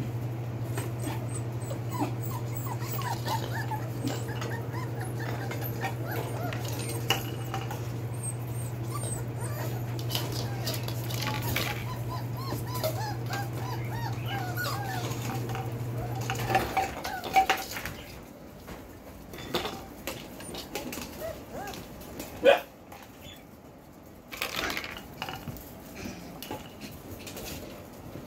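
A litter of four-week-old Belgian Malinois puppies playing, with many short high whimpers and yips and small knocks from paws and toys on a tile floor. A steady low hum under them stops about two-thirds of the way through. After that the knocks stand out more, with one sharp knock a few seconds later.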